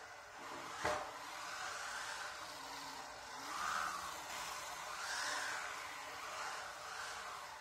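UDI RC Breaker remote-control car driving on a concrete floor: its electric motor whines and its rally wheels rub on the concrete. The whine swells and fades with throttle as the car passes close and heads away. A sharp knock sounds about a second in.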